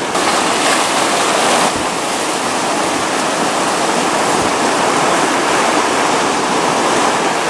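Loud, steady rush of river rapids: whitewater churning over rocks.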